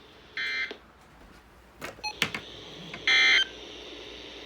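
Emergency Alert System end-of-message data bursts: two short, harsh buzzes of rapidly switching digital tones, one about half a second in and another about three seconds in, with a few clicks between them. They mark the end of the flash flood warning.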